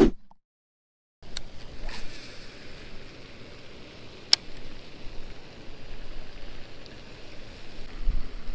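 About a second of dead silence, then a steady outdoor hiss of wind and water with one sharp click about four seconds in, and a low rumble of wind on the microphone near the end.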